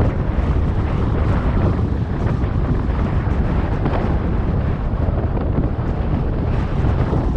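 Strong wind buffeting the microphone: a steady, loud low rumble with constant flutter.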